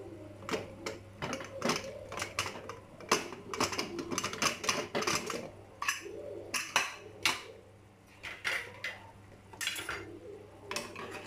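Aluminium pressure cooker lid being twisted open, lifted off and set down on the stove: an irregular run of metal clinks and knocks.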